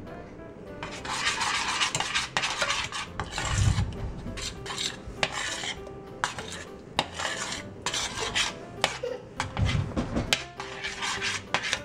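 Metal spoon stirring melted chocolate in a small stainless steel saucepan: repeated scraping against the pan's bottom and sides, broken by sharp clinks of spoon on metal. The chocolate is just finishing melting.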